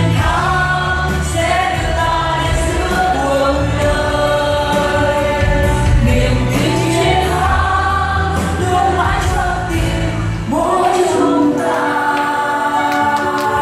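A group of voices singing a Vietnamese song in chorus over instrumental accompaniment with a steady bass line.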